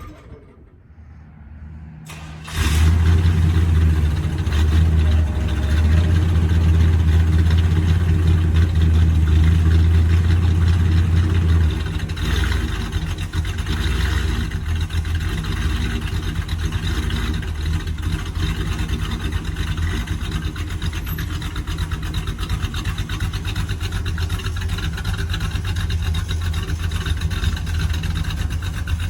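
Classic Chevrolet Monte Carlo's engine catching about two and a half seconds in and running steadily at a raised idle. It settles to a lower, quieter run about twelve seconds in.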